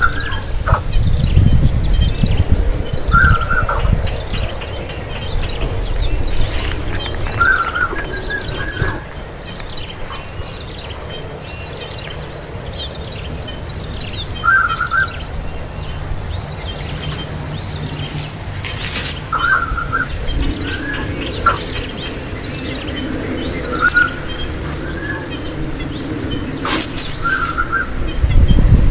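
A young bird giving short chirps, one or two at a time every few seconds. Underneath is a steady high hiss, with a low rumble in the first few seconds and again at the end.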